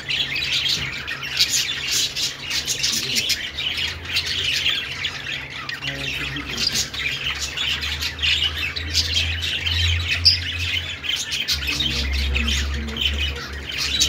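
A flock of caged budgerigars chirping and warbling all together in a dense, continuous chatter. A low rumble runs underneath from about halfway through.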